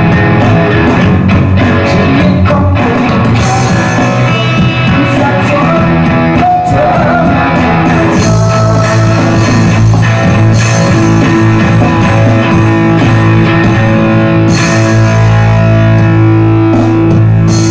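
Electric guitar playing a rock passage, loud and steady, with sustained chords over a strong low end.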